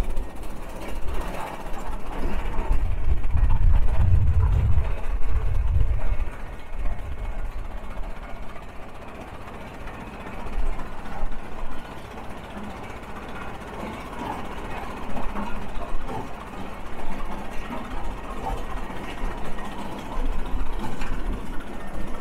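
Big Four 30 prairie tractor's four-cylinder engine running as the tractor drives, louder with a heavy low rumble for the first six seconds or so, then quieter.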